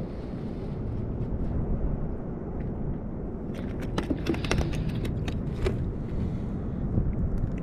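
Wind buffeting the microphone as a steady low rumble, with a quick run of sharp clicks and taps about four to six seconds in.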